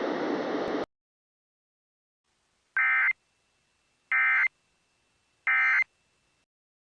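Three short bursts of Emergency Alert System SAME data tones, a buzzy two-tone digital chirp repeated about a second apart: the end-of-message signal that closes a weather-radio alert. A steady hiss cuts off within the first second.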